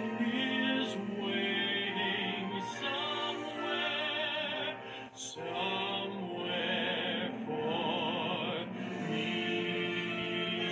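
Orchestral film-score music: a sweeping melody with strong vibrato over sustained chords, briefly dropping away about five seconds in.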